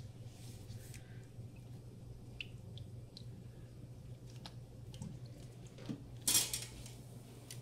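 Water splashing and dripping in a stainless steel bowl as a frozen tuna block is rinsed by hand, with small knocks of the block against the bowl. One louder splash comes about six and a half seconds in, over a steady low hum.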